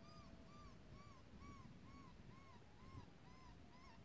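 Faint coyote calls: a steady run of short yips, about three a second, each rising and falling in pitch, over a long, low, slightly falling howl that sounds twice.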